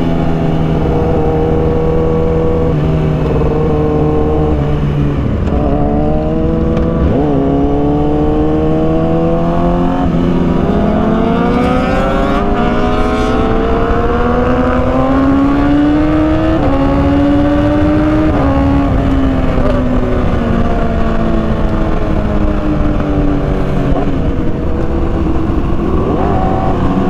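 Motorcycle engine running on the move, its pitch rising and falling with speed: a brief drop and rise early, a long slow climb through the middle, a fall, then a quick rise near the end. A steady low road and wind rumble lies underneath.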